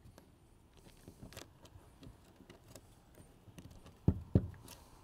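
Shoes and hands moving on bare plywood roof decking: faint scuffs and light taps, then two heavy thumps a quarter-second apart about four seconds in, as the decking is pressed to check that it is not soft.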